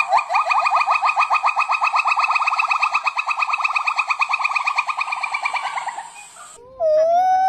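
A monkey calling: a fast run of short rising whoop notes, about ten a second, that fades out about six seconds in. A long, held, wail-like note begins near the end.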